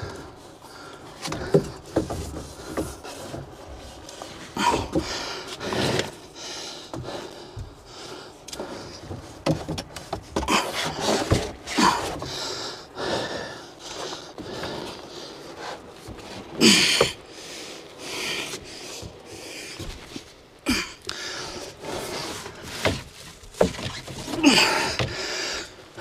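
Irregular knocks, scrapes and rubs of PVC electrical conduit being pulled back through the wall cavity, with a person breathing hard.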